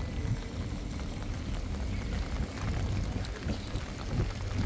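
Street ambience in heavy rain: a steady low rumble of wind on the microphone under a hiss of rain and running water.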